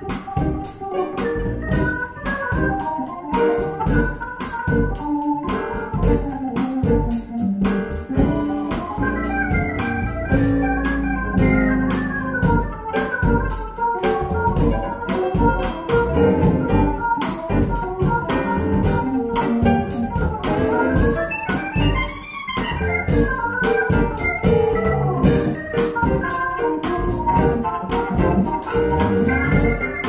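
Recorded instrumental music with a steady beat, organ-like keyboard to the fore, played back through KEF LS50 Black Edition bookshelf speakers with their two-way Uni-Q coaxial drivers, heard through the room.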